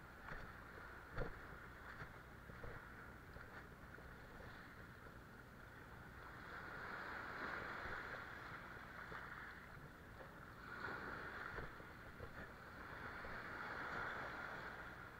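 Small sea waves washing in over rocks and shingle, swelling and fading three times about three seconds apart in the second half. Before them, scattered clicks and knocks of footsteps on stones, with one sharp knock about a second in.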